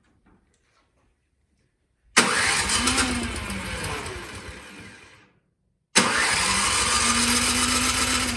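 Electric starter cranking the Gravely power brush's small engine, on full choke, twice: one attempt about two seconds in lasting about three seconds, a second starting about six seconds in, each spinning up then winding down. The engine does not catch.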